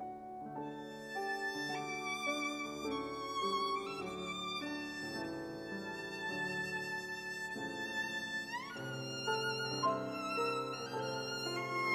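Classical violin playing long held notes over piano accompaniment, with a quick upward slide in the violin about nine seconds in.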